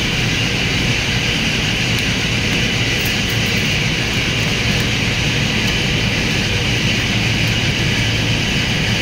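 Steady, loud machine drone with a hiss, unchanging throughout.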